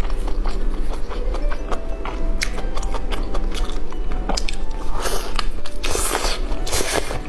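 Close-miked mukbang eating: biting and chewing with a run of small wet clicks. Three louder, noisier bites or slurps come in the last two seconds.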